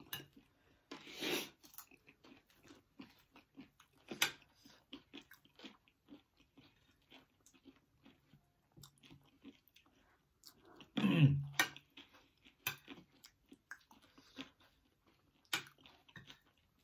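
Chewing and crunching of food, spicy chatpate and fried pakoda, with scattered small crackles and clicks of bites and cutlery. A short vocal murmur is heard about eleven seconds in.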